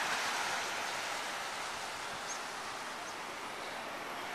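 Steady rushing wind noise on the microphone of a moving bicycle, with a few faint, short high chirps.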